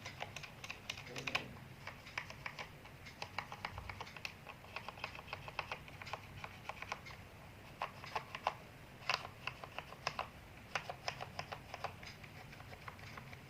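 Typing on a mechanical keyboard with linear switches: runs of rapid keystrokes with short pauses between them, not noisy and with no click.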